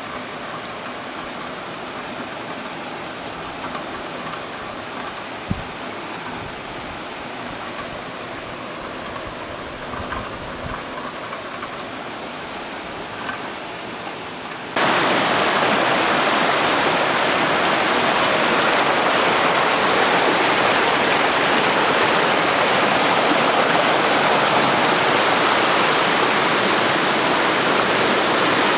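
Floodwater rushing down a street, a steady wash of water noise with a single knock about five seconds in. About halfway through it becomes suddenly much louder and fuller as the fast-running torrent takes over.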